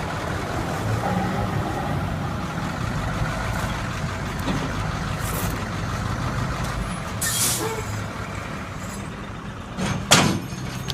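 Heavy diesel truck engine running steadily, with short air-brake hisses about five and seven seconds in and a louder sharp hiss near the end.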